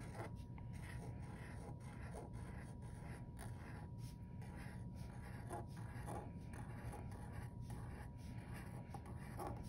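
Thin felt-tip marker drawing on paper: faint, short strokes in quick succession as rows of small loops are drawn.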